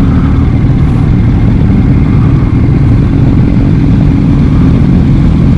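Motorcycle engine running steadily while riding at an even speed, a loud low drone with little change in pitch.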